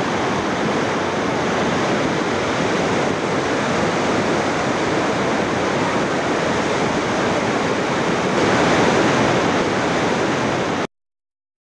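Mountain torrent in flood, its muddy water carrying stones and branches: a loud, steady rushing that gets a little louder about eight seconds in, then cuts off suddenly near the end.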